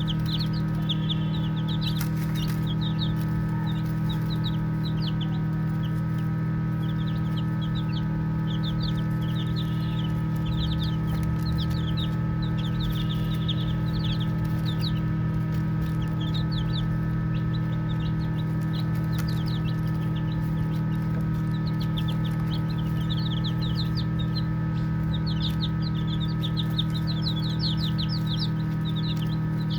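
A group of baby chicks peeping: many short, high chirps overlapping in irregular clusters, over a steady low hum.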